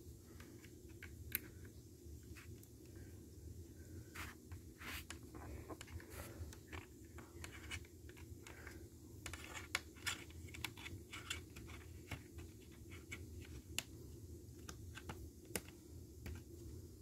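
Faint, irregular clicks and scratching from wires and the plastic exit-sign housing being handled.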